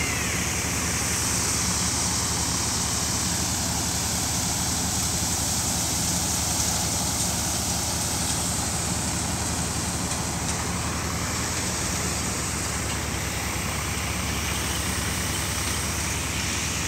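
Tractor-powered wheat thresher running steadily as wheat is fed in: the Swaraj diesel tractor engine's low drone under the thresher's dense, even hissing noise.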